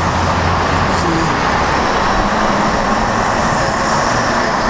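Road traffic noise from a busy road: a continuous, steady rush of passing vehicles, with a low engine hum that fades about a second in.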